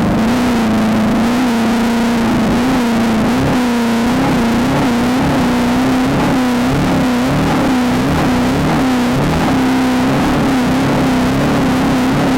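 VW Beetle off-road race car's engine running hard, its revs rising and falling rhythmically about one and a half times a second.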